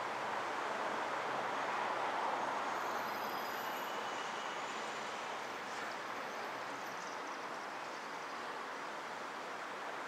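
Rushing noise of a passing road vehicle, swelling about two seconds in and then easing off.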